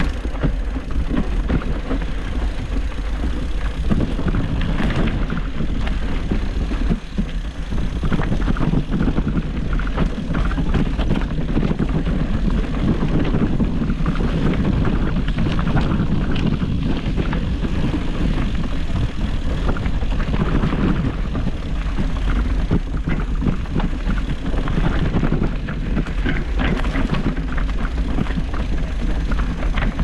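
Mountain bike rolling along a dirt single-track: steady wind rumble on the microphone, with tyre noise and frequent small rattles and knocks from the bike over the rough ground.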